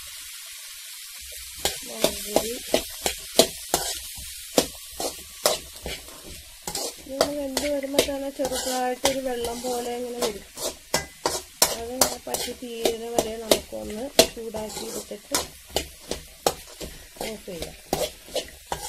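Steel spoon stirring sprouted pulses in a steel bowl: many quick clinks and scrapes of metal on metal over a rustling hiss of the moist mix, starting about a second and a half in. A low humming tone comes and goes in the middle.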